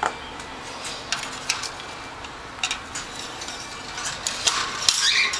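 Irregular light clicks and rattles, scattered at first and coming thick and fast near the end.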